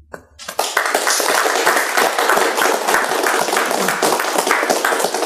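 A small group of people applauding, hand claps starting about half a second in and dying away near the end.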